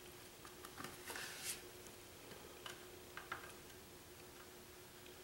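Faint small clicks and taps of a squeeze bottle of Titebond II wood glue being worked along a thin wooden frame, with a brief hiss about a second in. A steady faint hum runs underneath.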